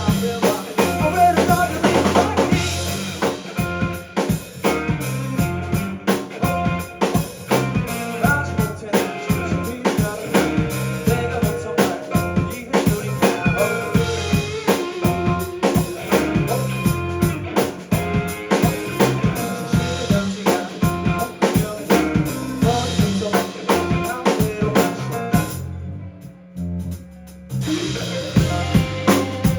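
Indie band playing live, with a drum kit driving a steady beat under bass and other instruments. Near the end the band stops for about two seconds, leaving only a low held note, then crashes back in.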